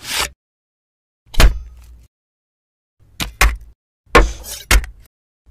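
A hard plastic handheld game console knocked and set down on a wooden tabletop: about six sharp knocks, the later ones coming in quick pairs.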